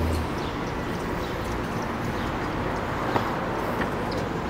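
Steady city-street background noise with a few faint ticks and a sharper click about three seconds in.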